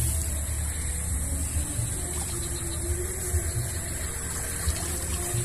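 Water trickling and sloshing off a fish trap as it is lifted out of swamp water, over a steady low rumble.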